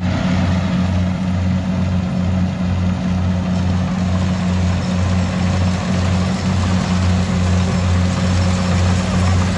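Rice combine harvester's engine running steadily at constant speed, a deep even drone with a slight regular pulse.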